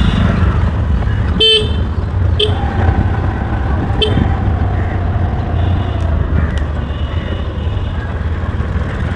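Short vehicle horn beeps, three of them about one and a half, two and a half and four seconds in, over the steady low rumble of wind and road noise from riding a scooter.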